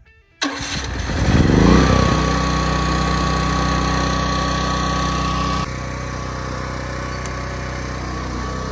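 A 12,000-watt dual-fuel portable generator (iPower) starting up about half a second in, rising to speed over about a second, then running steadily with a steady whine.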